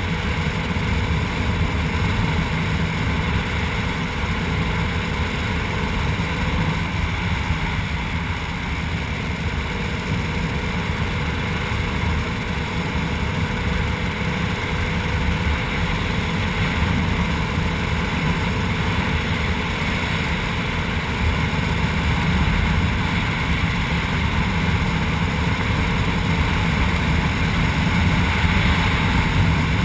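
KTM 300 EXC two-stroke single-cylinder engine running steadily as the bike rides along a paved road, getting a little louder in the last several seconds.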